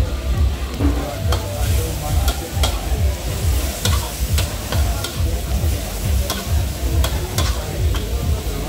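Metal spatula scraping and clanking against a wok during stir-frying, over the sizzle of frying food and a steady low rumble. The clanks come irregularly, about one or two a second.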